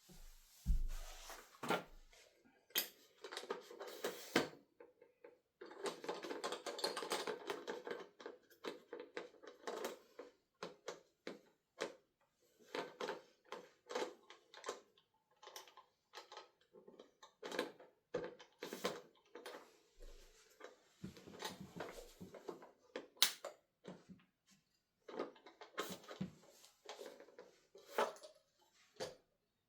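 Hands handling parts and packaging: scattered sharp clicks and knocks of small plastic and metal pieces, with a stretch of rustling about six seconds in.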